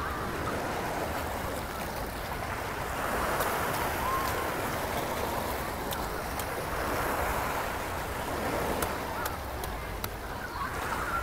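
Sea waves washing against a rocky shore: a steady rushing that swells and eases a couple of times.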